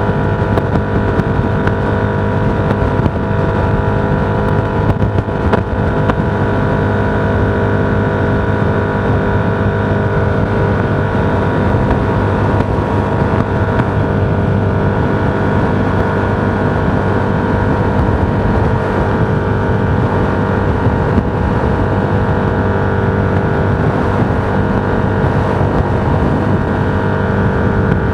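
Steady drone of a vehicle cruising at constant speed: engine and road noise holding an even pitch, with no change in speed.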